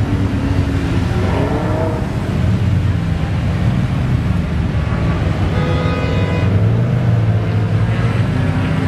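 Several Lamborghini engines idling and creeping along in slow traffic, a steady low rumble. One car revs briefly, rising in pitch, about a second in, and another revs around six seconds in.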